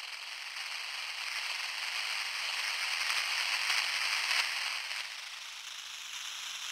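Crackling, hissing noise texture from the Spitfire Audio LABS Opia software instrument's "Locusts" preset, like a swarm of insects. It has no clear pitch, swells for about four seconds and then eases off.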